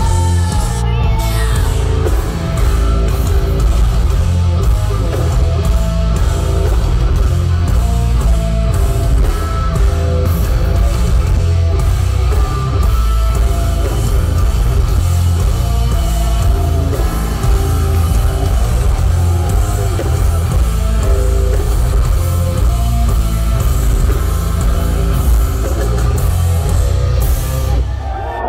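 Live heavy metal played by a band through a festival stage's sound system: distorted guitars, bass and drums, loud and heavy in the low end.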